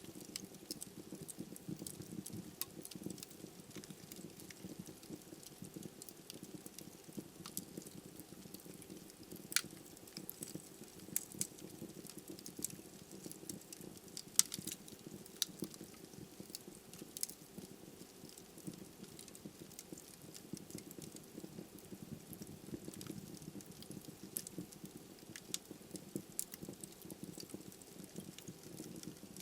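Wood fire burning in a fireplace: a steady low rush of flames with frequent sharp crackles and pops from the logs, a few louder pops scattered through.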